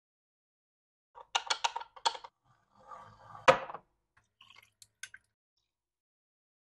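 Ice cubes dropping into a glass jar: a quick run of sharp clinks, one loud clink about halfway through, then a few faint ticks.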